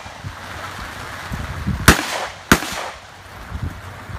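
Two shots from a Vepr 12 semi-automatic 12-gauge shotgun, about two-thirds of a second apart, near the middle.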